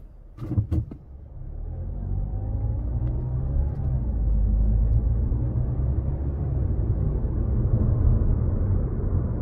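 Car engine and road rumble heard from inside the cabin as the car pulls away and speeds up, swelling over the first few seconds and then holding steady. Two sharp knocks sound just under a second in.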